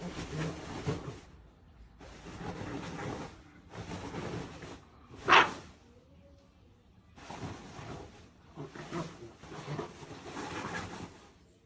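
French bulldog puppy coughing in several rough, noisy spells, with one short, sharp cough about five seconds in, the loudest sound.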